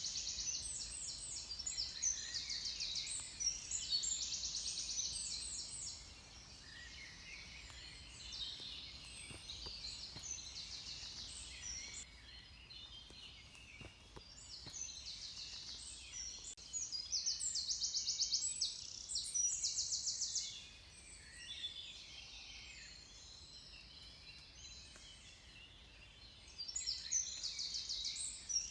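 Dawn chorus: several songbirds singing at once in overlapping phrases, some with fast trills, louder and denser near the start, again about two-thirds of the way in, and near the end.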